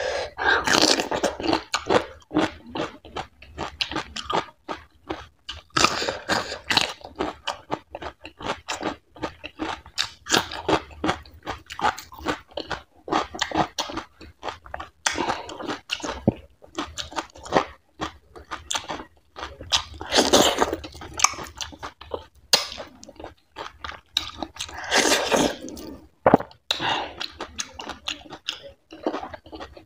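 Close-miked mouth sounds of eating fatty goat-meat curry with finger-millet dhido by hand: wet chewing and smacking, with bouts of crunching that come in clusters every few seconds.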